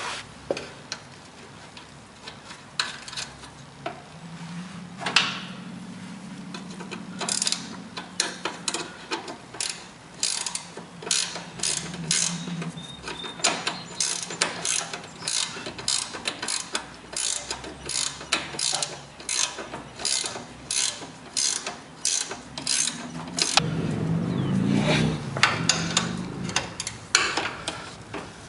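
Ratchet wrench clicking in long runs of even strokes, about two a second, with a short break near the end, as bolts are worked loose or tight on a lawn tractor's front steering during a steering bushing replacement.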